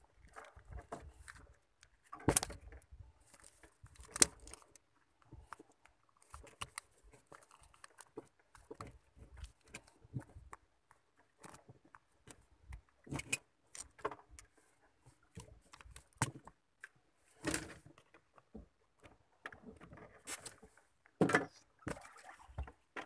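Handling noises as a caught fish is unhooked with a hand tool: irregular small clicks, rattles and knocks, a few of them louder.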